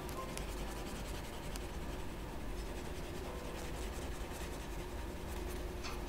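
Wax crayon scratching back and forth on paper as a drawing is coloured in, over a low steady hum.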